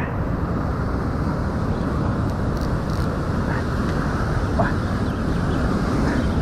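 Heavy surf breaking on a rocky shore: a loud, steady rush of noise.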